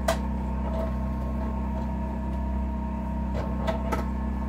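Steady electric motor hum, with a sharp click right at the start and a few light knocks about three and a half seconds in.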